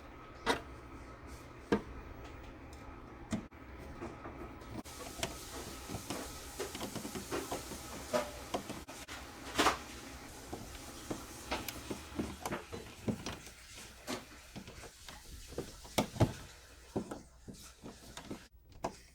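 Screwdriver driving the screws of an outlet cover plate: scattered clicks, taps and scraping of metal on the screws and plate.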